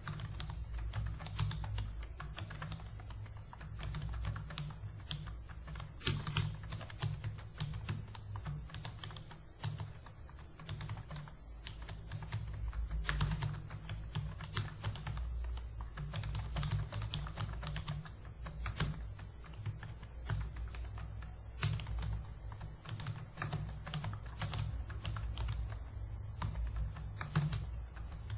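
Continuous typing on a computer keyboard: a dense, steady run of key clicks with a few louder strokes scattered through.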